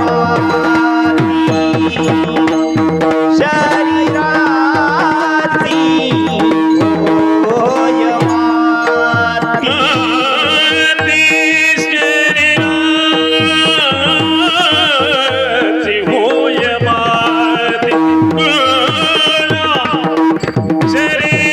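Devotional kirtan singing: a male voice sings a wavering, heavily ornamented melody over a steady drone and a hand-drum rhythm.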